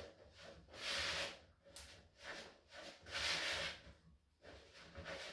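Spatula stirring wet soda-bread dough in a plastic mixing bowl: faint, soft swishing scrapes, three of them, each under a second long.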